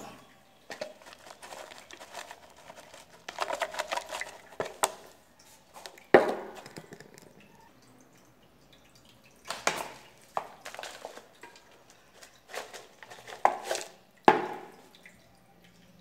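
Potting soil being added and worked into a terracotta pot by hand: irregular bouts of scraping and rustling, with sharp knocks about six seconds in and again near the end.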